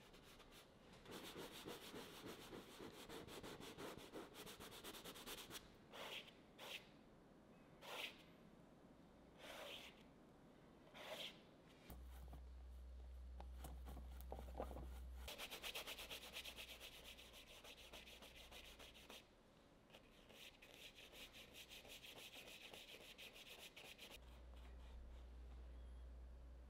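Faint scratchy rubbing of a bristle brush working oil paint on canvas and on a wooden palette, in a few long scrubbing passes and several short separate strokes.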